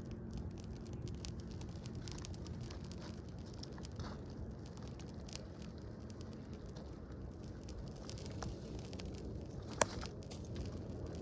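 Fire crackling: many small, sharp pops over a low steady rumble, with one louder pop near the end.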